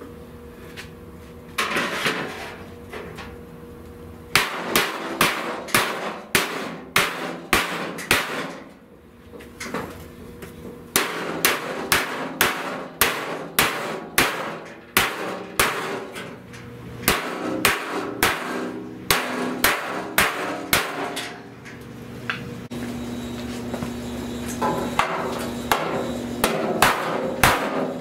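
Hand body hammer striking the sheet-steel fender of a 1970 Buick Wildcat, about two blows a second in several runs with short pauses between, beating out dents in its distorted lower section.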